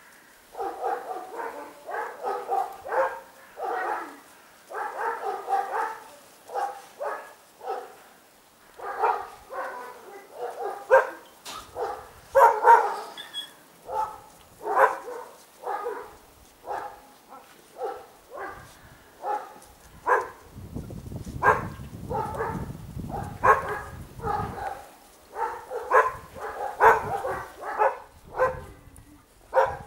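Dogs barking and yelping in a quick run of short calls, about two a second, with brief pauses.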